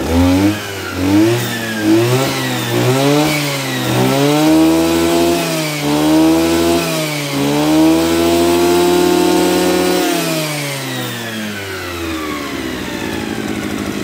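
Kawasaki TH34 34cc two-stroke brush cutter engine revved on the throttle trigger: several quick short blips, then longer revs and a steady high-speed hold that drops back to idle about ten seconds in.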